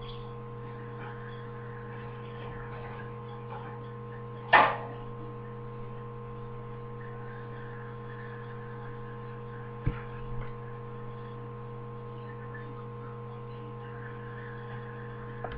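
Steady electrical hum with several fixed pitches. One short, loud sound about four and a half seconds in, and a sharp click near ten seconds.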